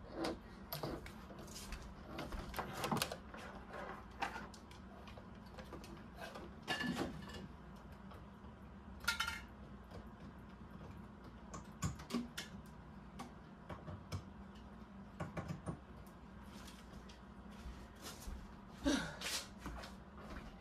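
Scattered light clicks, taps and knocks of cables and plastic fittings being handled on a desk while a ring light's power cord is plugged in, over a faint steady low hum.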